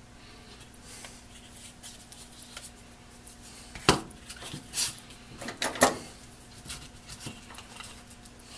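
Small tools and metal parts being handled on a workbench: scattered clinks and knocks, the loudest about four seconds in, over a faint steady hum.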